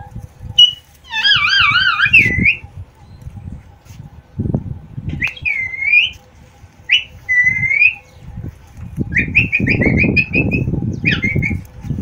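Parakeets whistling. First comes a long warbling whistle that wavers up and down, then pairs of short slurred whistles, and about nine seconds in a quick run of short rising notes. A low rumble comes and goes underneath.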